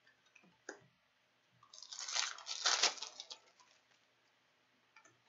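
A foil trading-card pack torn open, its wrapper crinkling for about two seconds, after a faint click.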